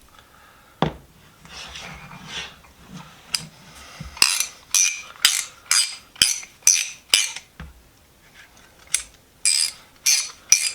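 Freshly reassembled hand ratchet wrench worked back and forth, its mechanism giving sharp metallic clicks about twice a second in two runs with a short pause between. A knock and some handling noise come before the clicking.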